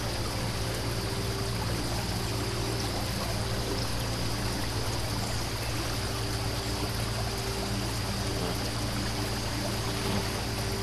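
Steady rush of flowing floodwater, an even hiss without a break.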